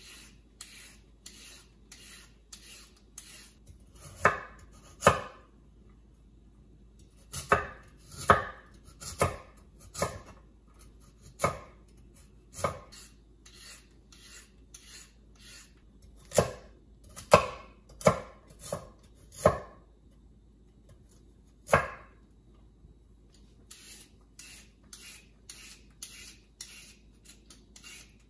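A hand peeler scraping down raw carrots in short, quick strokes, about two a second. Between them come clusters of louder sharp knocks: a knife chopping carrots against a wooden cutting board.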